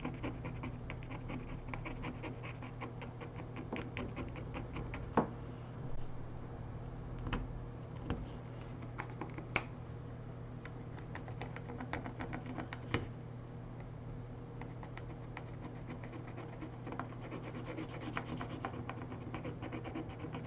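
Small hand tools scratching and scraping at a smartphone during a teardown, with rapid light clicks and a few sharper clicks.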